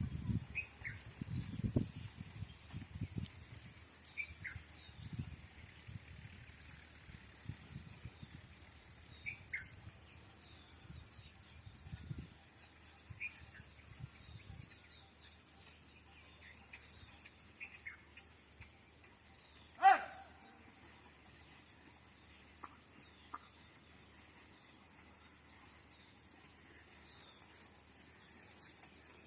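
Birds chirping, a short falling chirp repeated every few seconds over a steady background hiss. There are low dull thuds through the first twelve seconds or so, and one short loud call about two-thirds of the way in.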